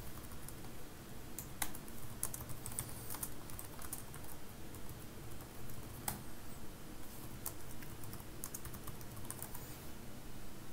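Typing on a computer keyboard: irregular key clicks in short runs with brief pauses, as terminal commands are entered.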